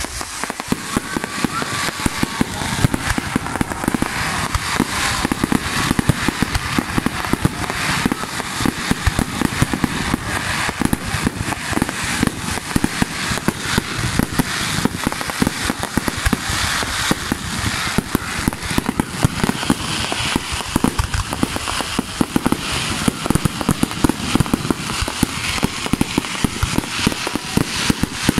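Fireworks display: a dense, unbroken barrage of rapid bangs and crackling, many reports a second, from aerial bursts and fountain-type effects.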